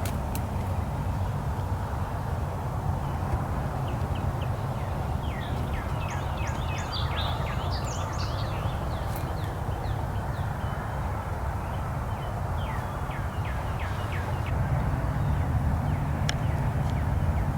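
Wild birds chirping over a low steady rumble: many short, falling chirps repeated in quick series, busiest from about five to eight seconds in.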